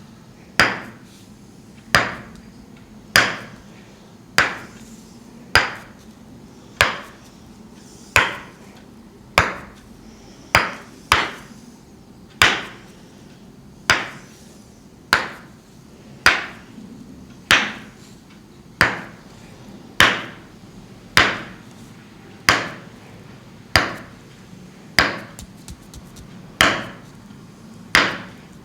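Tok-Sen massage: a wooden mallet striking a wooden peg held against the back, a sharp wooden knock about once every second and a quarter, each with a short ringing tail.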